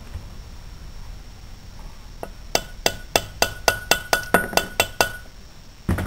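Quick series of about eleven sharp metal-on-metal taps, roughly four to five a second, with a slight ringing note, as a valve stem seal is tapped down onto its valve guide in a cylinder head with a socket; one heavier knock near the end.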